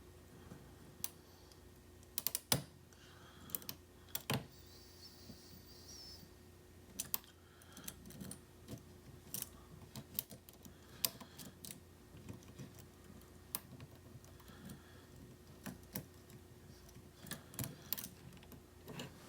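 Small, irregular clicks and taps of a lock pick and tension wrench working the pins of a pin-tumbler challenge lock during slow picking. A faint steady hum runs underneath.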